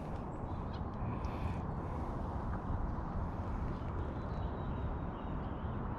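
Steady low outdoor background noise with a few faint small knocks.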